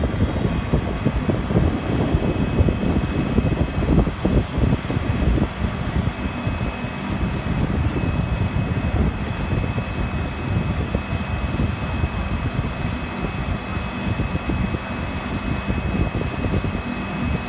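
Truck engine running to power the hydraulic LeveLift container-lifting arm as it raises a portable storage container: a steady low rumble with a thin high whine that gets a little stronger about halfway through.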